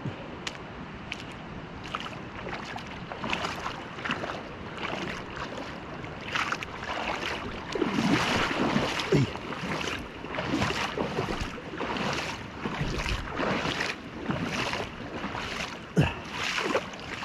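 Footsteps wading and splashing through a shallow, rocky creek, about two steps a second.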